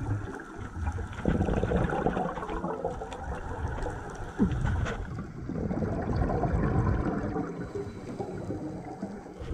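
Underwater bubbling from a scuba diver's regulator exhaust: exhaled air bubbles gurgling past the camera in two long breaths, one about a second in and one about halfway through.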